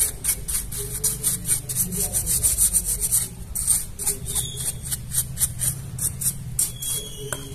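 Small bristle brush scrubbing a Tenda F3 router's circuit board in quick back-and-forth strokes, several a second: a dry, scratchy brushing.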